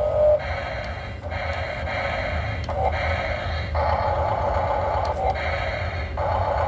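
Radio-controlled model excavator's electric motors whirring under a steady low hum. The whirr cuts in and out and shifts pitch every second or so as different arm movements start and stop.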